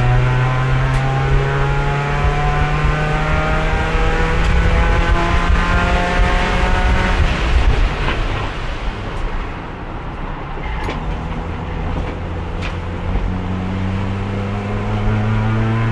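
Race car engine heard onboard, pulling in a single gear with its pitch climbing slowly for about eight seconds. It then lifts off and runs lower and quieter, with a few sharp clicks, before building again near the end. The car is held in fourth gear throughout because its transmission has lost the other gears.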